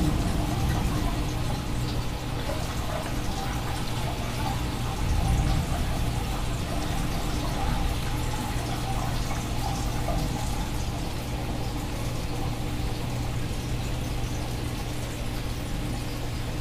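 Heavy, wind-driven thunderstorm rain pouring down in a steady hiss, with water running off a roof edge.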